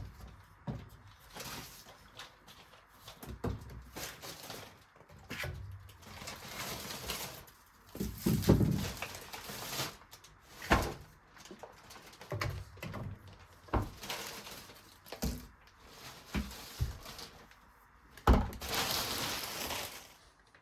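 Household handling sounds: a string of separate knocks and clatters, with a short rush of hiss near the end.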